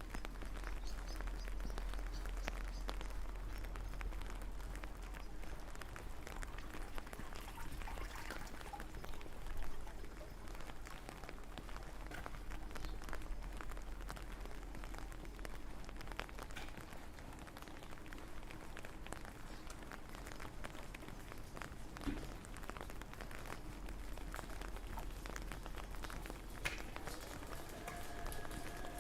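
Steady rain falling, with many separate drop ticks over an even hiss and a low steady rumble underneath.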